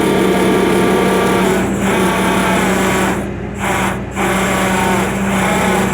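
Freightliner truck's engine and winch running with a steady mechanical whine while pulling a boat up, the sound dipping briefly twice a little past the middle.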